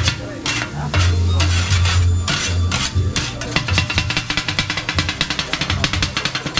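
Two metal kottu blades clanging against a steel griddle as kottu roti is chopped. The strokes are uneven and spaced out at first, then from about halfway run together into a fast, steady clatter of about six strikes a second.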